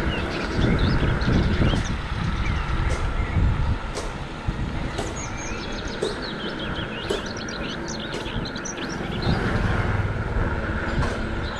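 Bicycle tyres rolling on a road, a steady rumble that swells and eases, with a few sharp clicks and many short high chirps over it.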